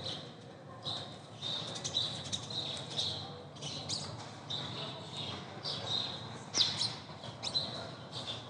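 Small birds squabbling: a busy run of short, harsh chirps and squawks, one after another with little pause.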